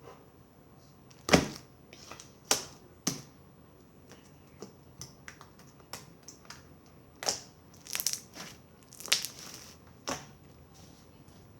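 Slime being squeezed and folded by hand, giving irregular sharp pops and clicks, the loudest about a second in.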